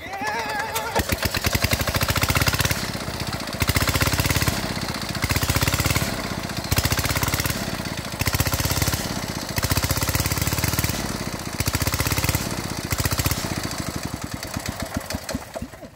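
Small single-cylinder engine of an irrigation water pump starting and running, with water gushing from the pump outlet. Its loudness swells and falls every second or so, and near the end the firing strokes slow as the engine dies.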